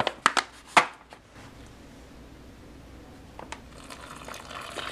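Foil food pouch crinkling with a few sharp clicks as it is handled, then, about four seconds in, a steady hiss of water being poured from a plastic measuring cup into the pouch of freeze-dried muesli.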